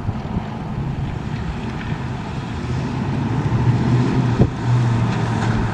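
The 289 cubic-inch four-barrel V8 of a 1965 Ford Mustang GT350 clone running as the car drives and turns toward the listener. It grows louder over the second half, with a short sharp knock about four seconds in.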